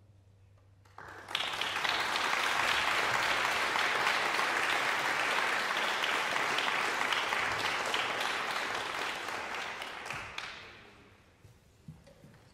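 Audience applauding, starting suddenly about a second in, then dying away near the end.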